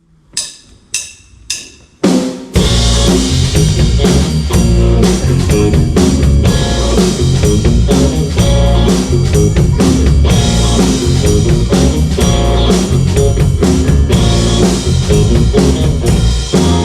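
Four sharp clicks in about two seconds, a drummer's count-in, then a blues-rock band comes in together on drums, bass and other instruments, playing the instrumental intro of the song.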